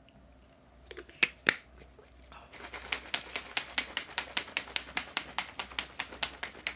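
Two sharp clicks just over a second in. Then a plastic shaker cup with a pink drink inside is shaken hard, knocking rapidly and evenly at about six strokes a second to mix the drink.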